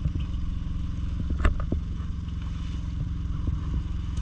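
A boat's engine running steadily with a low drone, with a few clattering knocks on deck, the loudest about a second and a half in.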